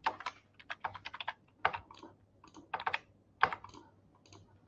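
Computer keyboard typing: irregular runs of keystrokes as a login name and password are entered.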